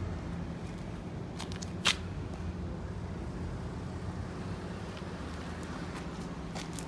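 Iseki CAC245 mini tiller's 1.6 hp four-stroke engine idling steadily with the tines at rest. There is one sharp click about two seconds in.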